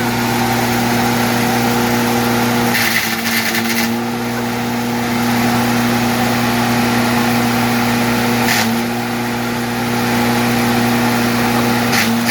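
A 5 hp, 220-volt electric wood chipper running with a steady motor hum. There are short bursts of grinding noise about three seconds in (lasting about a second), again past the middle, and near the end, as food is shredded through it.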